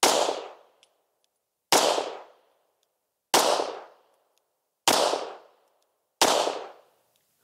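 Five 9mm pistol shots from a Sig Sauer P320 X5 firing 147-grain ammunition, one about every second and a half, each fading quickly after the report.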